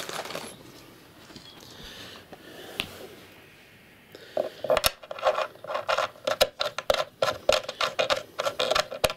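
A steel threaded connector rod being twisted by hand into a threaded hole in a chipboard sofa frame. From a little past the middle it gives a quick run of squeaky scraping clicks, about four a second, as the thread turns in.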